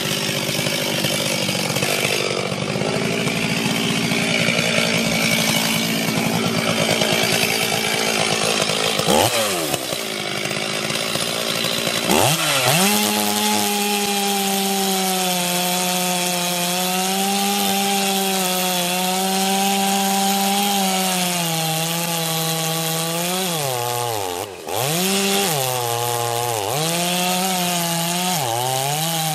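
Ported 70cc two-stroke chainsaw running at full throttle while cutting firewood. Its revs drop and climb back twice, and near the end the engine dips and picks back up several times in quick succession.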